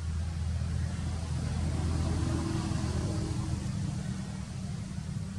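A low, steady rumble with a faint hum that swells about two seconds in and then eases.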